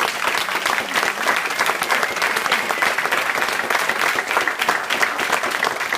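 Audience applauding, many hands clapping at once in a steady burst.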